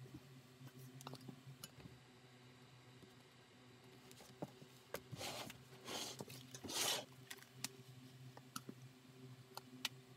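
Quiet handling sounds of leatherwork on a cutting mat: scattered light clicks and taps, and a few brushing scrapes around the middle, the loudest just before the end of that stretch, as the glue spreader and leather panels are worked. A steady low electrical hum runs underneath.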